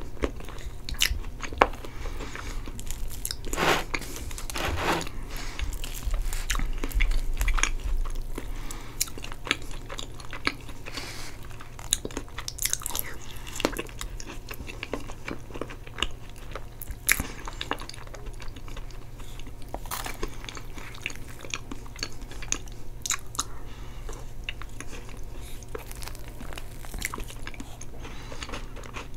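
Close-miked chewing and wet mouth sounds of eating soft chocolate cake with caramel sauce and whipped cream: many short, irregular smacks and clicks.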